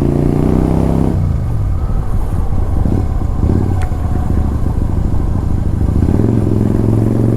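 Motorcycle engine heard on the move from the rider's seat. It runs steadily, then drops in revs about a second in as the throttle closes and runs lower and rougher for several seconds. Around six seconds in it picks up again and holds steady.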